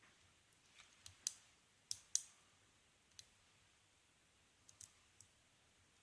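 Hook pick working the pin stack of a Best six-pin brass padlock during single-pin picking, with tension held on the core. Sparse, sharp, light metallic clicks: a cluster of about five between roughly one and two and a half seconds in, one more near the middle, and a few faint ones near the end.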